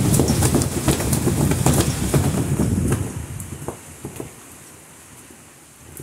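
Strong storm wind gusting across the microphone with a heavy rumble and sharp clicks, easing about three seconds in to a softer rustle of wind through the trees.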